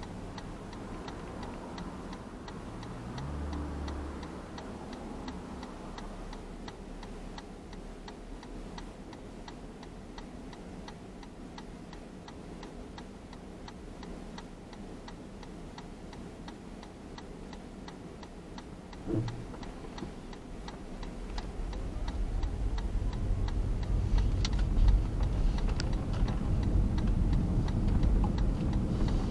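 Car's turn-signal indicator ticking steadily inside the cabin while the car sits idle. About two-thirds of the way through, a short low sound is heard, then the car pulls away and engine and road noise rise.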